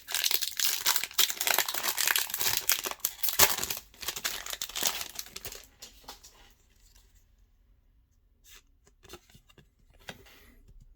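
Foil wrapper of a Pokémon Brilliant Stars booster pack being torn open and crinkled, a dense crackling that dies away about halfway through. A few faint clicks follow as the cards are handled.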